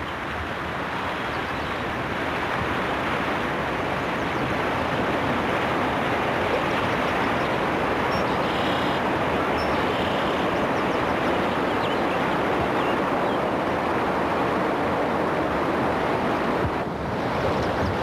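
Fast river water rushing steadily over a rocky riffle.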